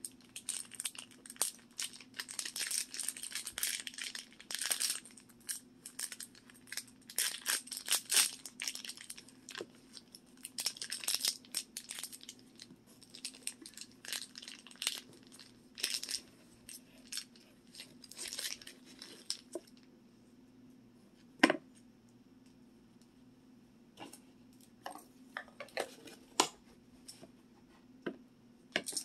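Crinkly plastic toy wrapper being crumpled and torn open by hand, in dense rustling bursts. The rustling stops about twenty seconds in, followed by a single sharp click and a few scattered small handling sounds.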